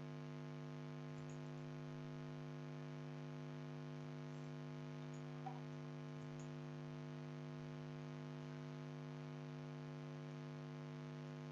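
Steady, faint electrical hum on the recording, made of several even tones. There is a single faint click about five and a half seconds in.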